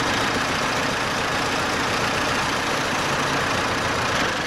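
Belarus 1025 tractor's diesel engine running steadily, in its untreated state before the Resurs diesel additive.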